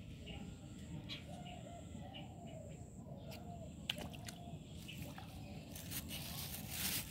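A hooked fish thrashing at the pond's surface, with a few sharp splashes about four seconds in.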